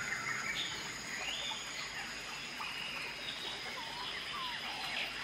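Tropical forest ambience: scattered short bird chirps and calls over a steady high-pitched insect drone.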